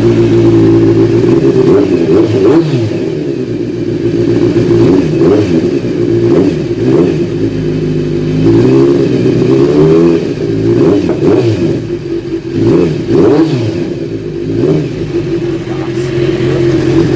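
Kawasaki Z1000's inline-four engine idling and being revved in repeated short throttle blips, its pitch rising and falling again and again.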